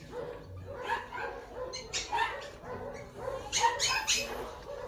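Newborn Shih Tzu puppy giving a string of short, high-pitched squeaks and cries, thickest near the end.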